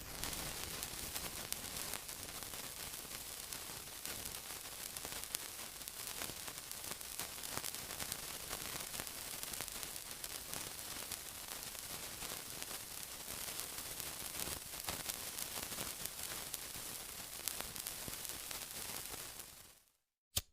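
Steady sizzling: a dense hiss full of fine crackles that fades out about a second before the end.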